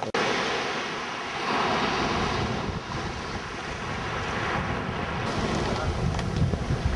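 Wind buffeting the microphone with a low, uneven rumble, over the steady wash of small waves breaking on a beach.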